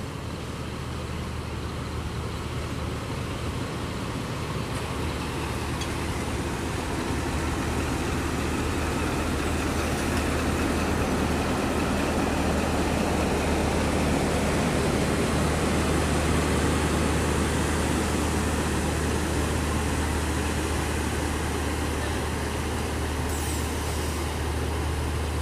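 Diesel train running at a station platform: a steady low engine drone under a broad rumbling noise, getting gradually louder over the first half or so.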